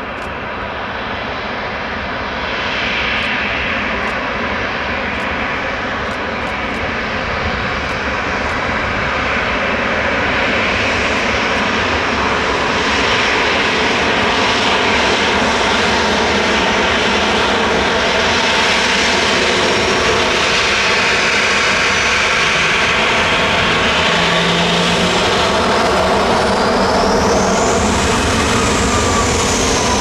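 Boeing 737-800 CFM56-7B turbofan engines running as the jet taxis, growing louder over the first dozen seconds as it comes closer, then holding steady. A high whine rises and falls near the end.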